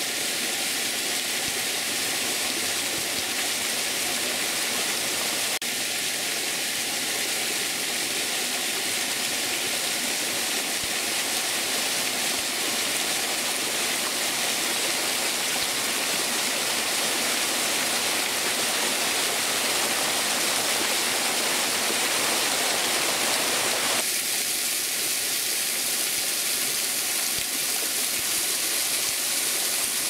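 Small stream cascading over rocks in little waterfalls: a steady rush of water, its tone changing slightly about five seconds in and again near the end.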